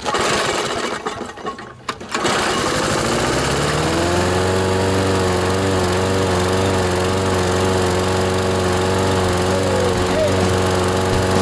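Briggs & Stratton engine on a Toro Recycler lawn mower being started. It catches about two seconds in, revs up, and settles into a steady run at about four seconds.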